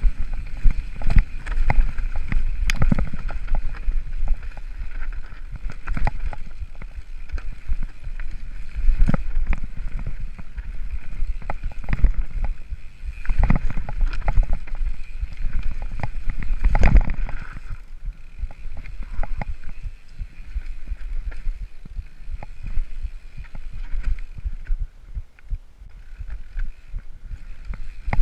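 Mountain bike descending rough rocky singletrack: wind rumbling on the microphone, with constant clatter and knocks as the tyres, chain and frame go over rocks and roots.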